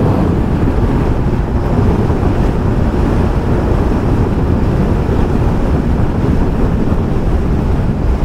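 Steady, heavy wind noise rushing over the microphone of a scooter rider at freeway speed, around 120 km/h, burying the engine and tyres.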